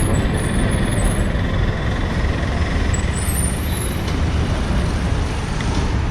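Steady road traffic noise: a continuous low rumble of passing vehicles with no breaks.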